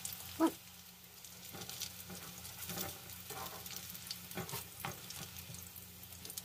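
Tortang talong (eggplant omelette) patties sizzling in hot oil in a pan, with a wooden spatula scraping the pan several times as it turns them. A short knock about half a second in is the loudest sound.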